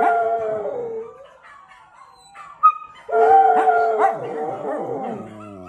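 Scottish terrier howling: one long howl ends about a second in, then after a brief sharp sound a second long howl begins about three seconds in and slides down in pitch as it fades.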